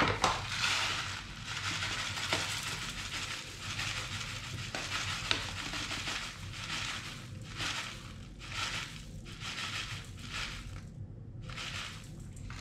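Rolled oats pouring from a paper bag into the stainless-steel bowl of a Bosch Cookit, a steady rustling hiss of dry flakes that breaks into short spurts in the second half, with a brief pause near the end.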